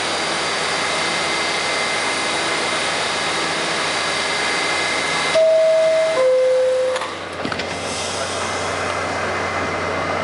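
R68 subway car standing at a station, its equipment humming steadily with a thin high whine. About five seconds in the two-tone door chime sounds, a high note then a lower one, followed by a single knock as the doors close.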